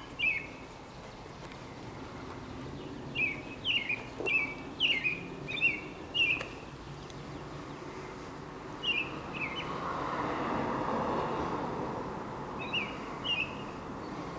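American robin singing: short notes in quick runs, with pauses of a few seconds between the runs. A faint rushing sound swells and fades behind the song about ten seconds in.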